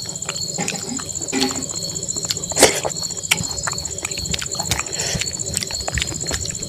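Bare fingers mashing and mixing rice with green vegetable on a steel plate, with chewing and lip smacks heard as many short wet clicks; the loudest click comes a little past halfway. A steady high insect trill runs underneath throughout.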